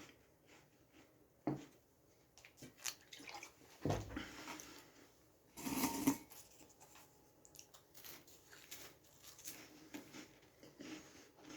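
Close-up mouth sounds of a person eating and drinking: scattered small clicks and smacks, with two louder short noises about four and six seconds in, the second the louder.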